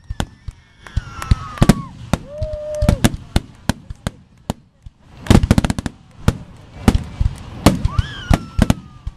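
Aerial fireworks shells bursting in quick succession: sharp bangs throughout, with a dense rapid cluster a little past halfway. Several long whistles fall in pitch between the bangs.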